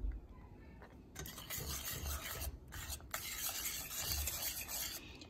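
A wire whisk scraping and stirring a thick, lumpy flour-and-stock sauce in a pan: a continuous rasping scrape that starts about a second in, with a few brief pauses between strokes.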